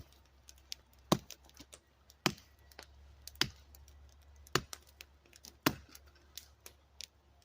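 An axe striking cedar again and again as kindling is split, about one sharp chop a second, six in all.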